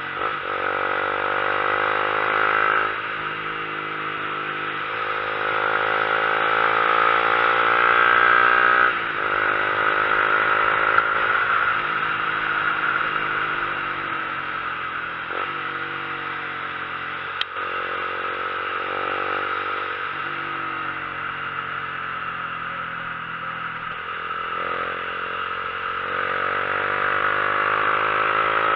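Motorcycle engine pulling uphill under acceleration, its pitch climbing through each gear and dropping back at each shift, several times over. There is a steady rush of wind over the engine and one sharp click partway through.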